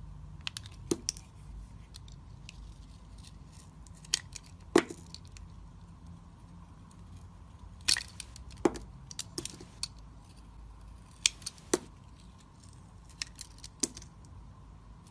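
Knife cutting into a bar of soap: about fifteen short, crisp clicks and cracks at irregular intervals, over a low steady hum.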